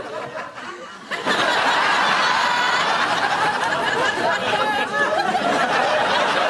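Studio audience laughing: a sudden burst of many people's laughter about a second in, carrying on loudly and steadily.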